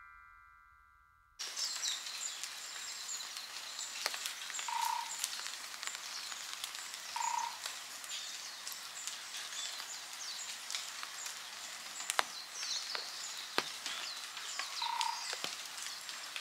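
Steady rain falling, with scattered drips ticking and small birds chirping high. A short mid-pitched call sounds three times. A fading chime gives way to this outdoor sound about a second and a half in.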